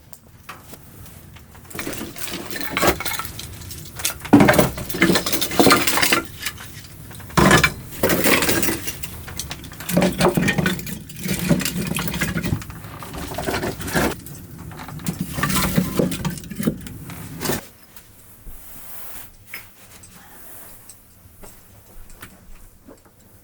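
Hard objects being handled, with irregular clattering and clinking that stop abruptly near the end.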